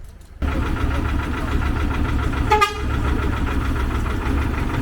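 A vehicle engine running steadily, cutting in abruptly about half a second in, with a brief beep about two and a half seconds in.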